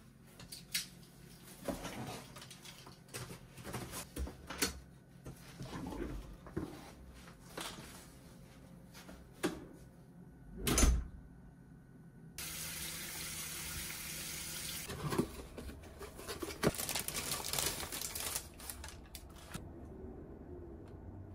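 Flattened cardboard boxes being handled, with rustles, taps and knocks, and a heavy thump about eleven seconds in. Then a tap starts suddenly and runs steadily into a bathroom sink for about seven seconds before stopping.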